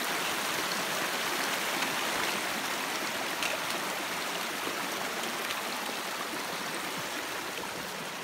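Mountain creek running, a steady hiss of flowing water that grows slightly fainter toward the end.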